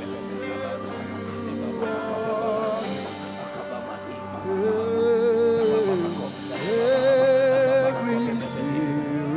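Live worship music: a voice sings long, held notes with vibrato over a sustained instrumental backing. Two long notes about halfway through are the loudest part.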